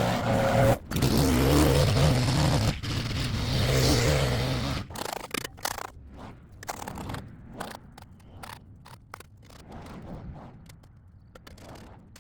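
A small engine-powered yard tool runs with a steady hum and gritty scraping against the pavement, cutting off about five seconds in; after that come scattered scrapes and clicks on the sidewalk surface.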